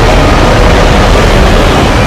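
Custom Godzilla monster sound effect: a loud, dense, steady rumbling noise with a deep low end and a faint held tone in the middle.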